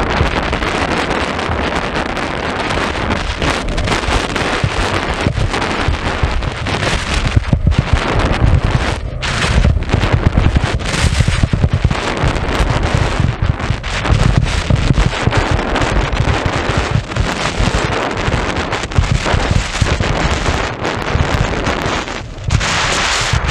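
Wind buffeting the microphone of a camera carried fast down a ski slope, a gusty low rumble, mixed with the hiss and scrape of edges sliding over packed snow.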